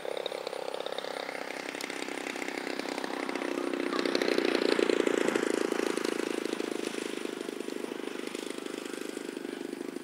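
Model airplane engine running in flight, a steady buzz that grows louder as the plane comes past about halfway through, then fades.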